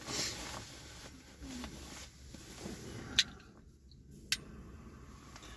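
A soft breathy exhale at the start, then two sharp single clicks a little over a second apart in a quiet car cabin.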